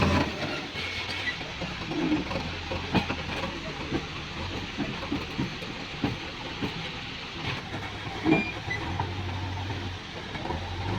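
Heavy diesel machinery running low, with scattered clanks and knocks, the loudest about eight seconds in; a low engine drone rises again near the end.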